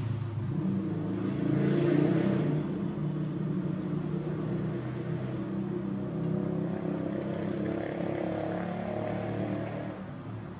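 Motor vehicle engine running, with a rushing swell about two seconds in; the sound fades near the end.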